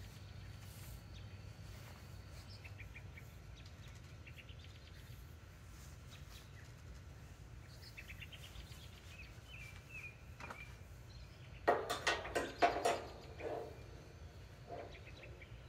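Birds chirping in short repeated series over a steady low outdoor hum. About twelve seconds in, a short burst of loud knocks and clatter, the loudest sound here.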